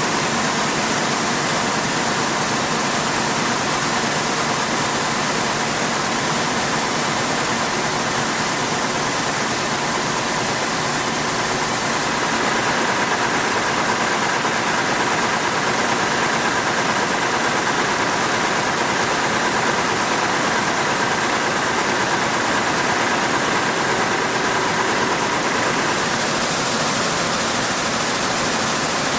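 Weaving looms running together in a weaving mill: a dense, steady mechanical din that holds at the same level throughout.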